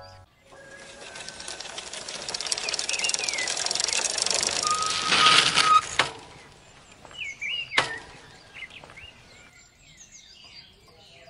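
Bicycle coasting up with its rear freewheel ticking rapidly and the tyres hissing, growing louder as it nears, then a brief steady squeal as it pulls up and stops. Two sharp clicks follow, with birds chirping.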